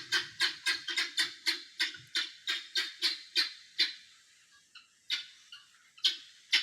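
Guinea fowl calling: a rapid run of harsh repeated calls, about three or four a second, that slows and fades out about four seconds in, followed by a few single calls.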